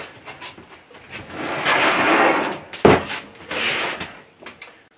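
Cast iron midi lathe being slid and swung round on a workbench: a long scrape, a heavy knock just before three seconds in, then a shorter scrape and a few small clicks.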